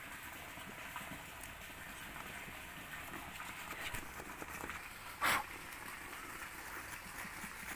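Wood saw blade of a Victorinox Huntsman Swiss Army knife cutting into a thick green jamun branch, with faint strokes of the blade in the wood and one brief louder sound about five seconds in.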